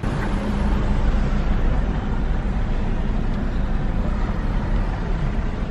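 Steady low rumble of a car's engine and tyres on the road, heard from inside the cabin of the moving car.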